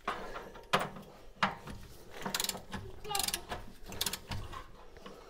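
Ratchet wrench clicking in short quick runs as a front suspension nut on an MGB is tightened, with a couple of sharp knocks of metal on metal near the start.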